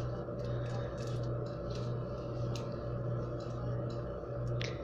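Steady low hum of the hall's room tone, with a few faint scattered clicks and no clear speech.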